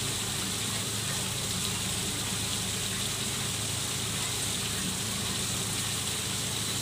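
Small garden waterfall splashing steadily into a koi pond, with a steady low hum underneath.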